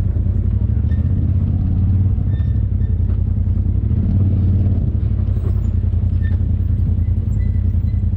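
Off-road vehicle's engine running steadily at low revs while the vehicle creeps along a rocky trail, swelling slightly a couple of times.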